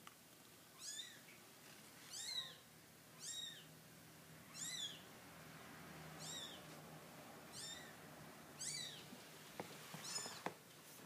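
Kittens mewing: about eight thin, high-pitched cries roughly a second apart, each rising and falling in pitch.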